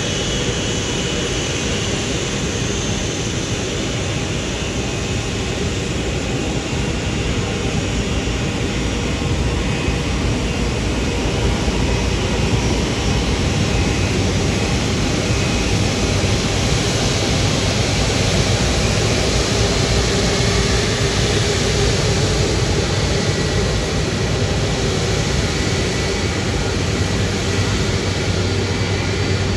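Airbus A330-200F freighter's twin jet engines at taxi power as the airliner rolls slowly past: a steady jet whine over a rumble, growing a little louder about ten seconds in.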